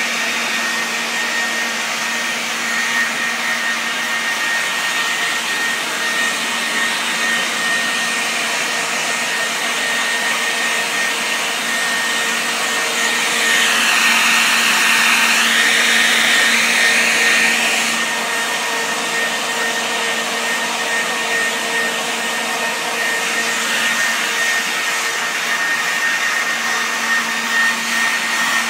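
Corded electric leaf blower running steadily with a high whine. It grows louder and hissier for about four seconds in the middle.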